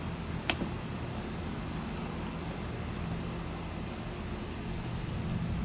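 Steady background hiss with a low hum underneath, and a single sharp click about half a second in.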